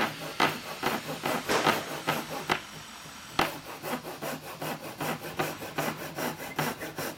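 A Silky Hibiki ryoba Japanese pull saw rip-cutting timber with its rip-tooth edge. It makes quick back-and-forth sawing strokes at about three a second, pauses briefly about three seconds in, then carries on.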